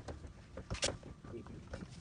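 A short, sharp click a little under a second in, among faint scattered handling clicks.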